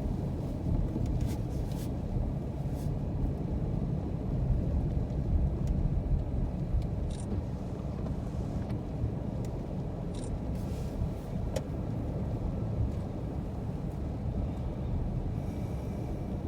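Car on the road: a steady low rumble of engine and road noise, with a few faint ticks.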